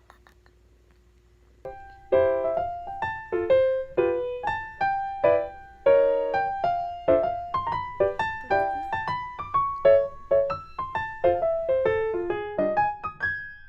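Background piano music: a steady melody of single notes that starts about two seconds in, after a short near-quiet moment.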